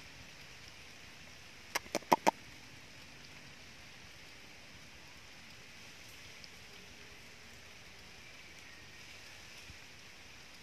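Faint steady outdoor hiss, broken about two seconds in by a quick run of four sharp clicks.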